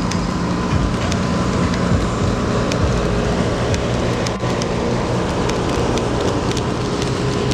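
Loud steady engine rumble with a constant low hum and a faint steady whine, dotted with scattered light clicks.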